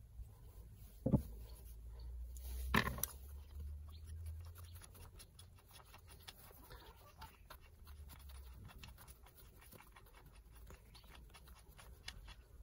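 Rusty steel parts of an old hand drill being handled: two sharp metal knocks about one and three seconds in, then light gritty scratching and clicking as a threaded collar is turned along the drill's rusted spindle.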